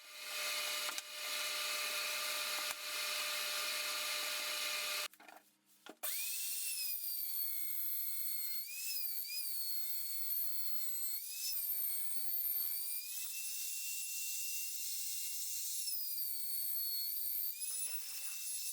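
Electric power tools working wood. A steady whirring runs for about five seconds and cuts off. After a short gap comes a high motor whine that dips and rises in pitch several times as the tool bites into the wood.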